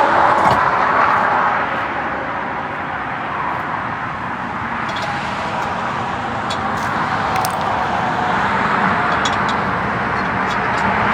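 Road traffic: the steady rush of passing cars, swelling and easing over several seconds, with a few light clicks near the end.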